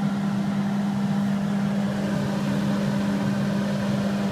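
A kitchen appliance running with a steady, unchanging hum at one low pitch.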